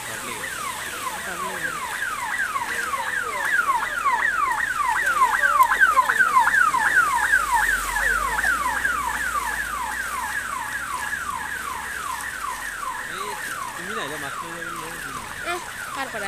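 Ambulance siren sounding a rapid, repeating falling tone, about three or four sweeps a second. It grows louder as the ambulance comes past, loudest about six to eight seconds in, then fades.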